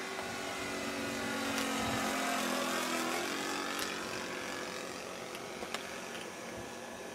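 A propeller plane flying past: its engine grows louder over the first two or three seconds, then fades away.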